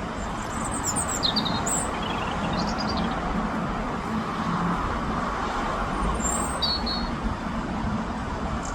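Steady traffic rumble, with a European robin singing short, high, twittering phrases over it in the first three seconds and again about six and a half seconds in.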